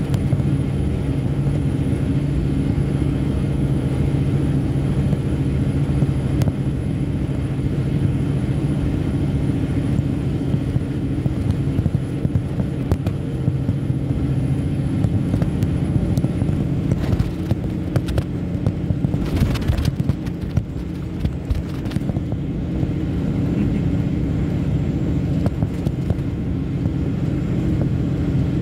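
Log truck's diesel engine and road noise droning steadily, heard inside the cab while driving. A short hiss comes about two-thirds of the way through.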